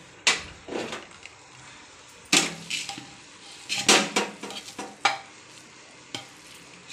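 Steel spoon knocking and scraping against the inside of an aluminium pressure cooker as cooked biryani rice is stirred, in irregular clinks and scrapes, busiest in the middle.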